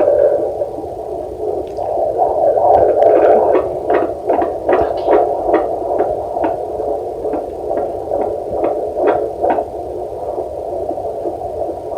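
Fetal Doppler's loudspeaker output: a steady whooshing hum with quick crackly pulses, about two to three a second, as the probe listens over a pregnant belly for the fetal heartbeat.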